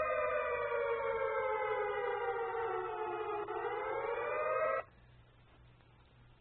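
Air raid siren sound effect played from a soundboard. Its wail falls slowly, rises again, then cuts off suddenly about five seconds in.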